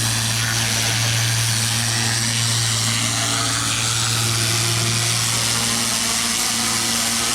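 Pressure washer running steadily with a low engine hum, under the hiss of water spray from a turbo nozzle blasting weeds out of the joints between paver bricks.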